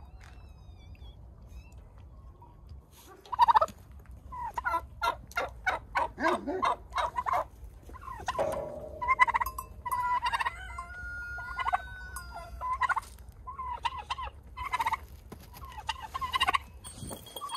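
Domestic turkeys gobbling: rapid rattling gobbles repeated over and over, starting about three seconds in.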